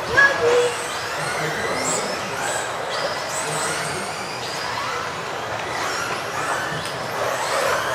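Several electric off-road RC race cars racing together, their motor whines rising and falling as they speed up and slow down, echoing in a large hall. A brief louder sound comes just after the start.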